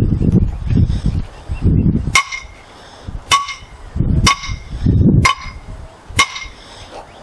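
Five ringing metal strikes about a second apart, starting about two seconds in: steel being hammered as the bracket is seated onto the top of the helical pile pipe. A low rumbling noise runs under the start and again midway.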